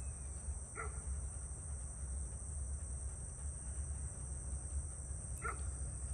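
A dog gives two short single barks, almost five seconds apart, over a steady, high-pitched chorus of crickets and other insects.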